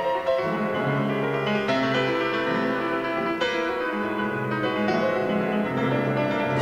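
Solo piano playing with a symphony orchestra in a modern classical piece: chords change about every second over sustained low notes.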